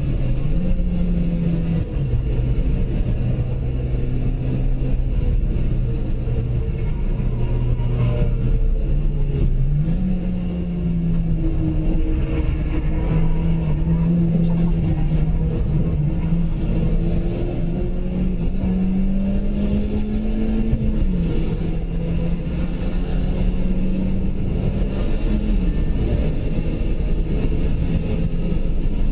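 Citroën DS3's engine heard from inside the cabin under hard driving, its note climbing and then dropping sharply at several gear changes, over steady road and tyre noise.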